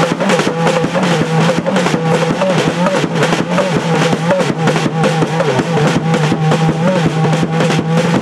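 Live dance music with fast, dense drumming over a steady low drone and a wavering higher melodic line.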